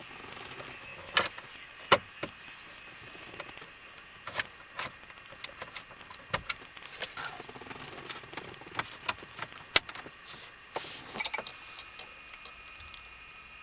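Scattered clicks, taps and light rattles of parts being handled, with a few short scraping bursts. A faint steady high tone starts near the end.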